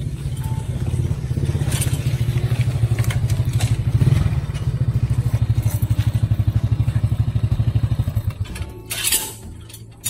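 Small step-through motorcycle's engine running with an even, steady beat as the bike rides up and stops, then cut off about eight seconds in; a short clatter follows near the end.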